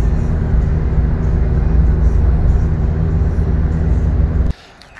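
In-cabin noise of a Renault car cruising at motorway speed: a steady low engine and road rumble with a faint hum. It cuts off suddenly near the end.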